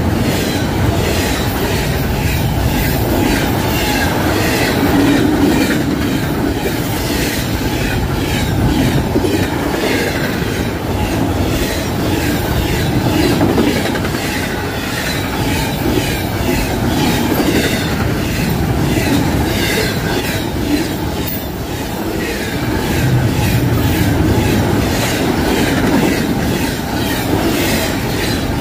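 Union Pacific doublestack intermodal train passing close by: a steady rumble of well cars, with the wheels clicking in an even, repeating rhythm as they cross the rail joints.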